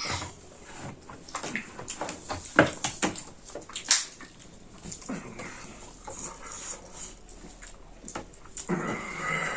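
Close-up eating noises: chewing, wet lip smacks and sharp crunches, with two louder cracks about two and a half and four seconds in. A short voiced sound comes near the end.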